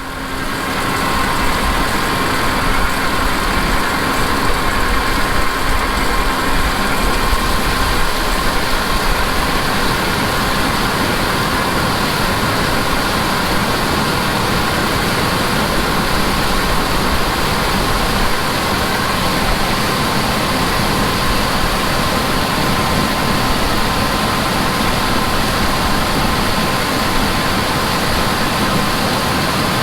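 Heavy farm harvest machinery running steadily: a continuous engine drone with a steady high whine over it.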